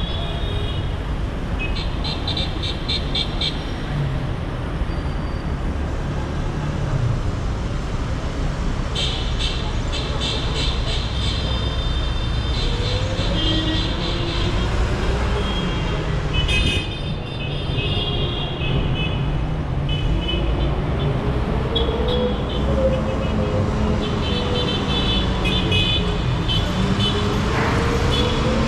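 Heavy street traffic: a steady rumble of engines and tyres with car and motorbike horns tooting again and again, in several bursts of honking.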